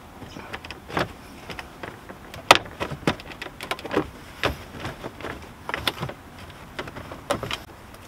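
Plastic center-console trim of a Honda CRX being pulled loose by hand: a string of irregular clicks and knocks, the sharpest about two and a half seconds in.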